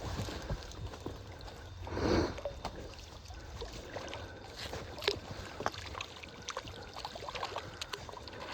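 Water trickling and sloshing around a small boat, with scattered light knocks and clicks as a gillnet is hauled in. There is a brief louder rush about two seconds in.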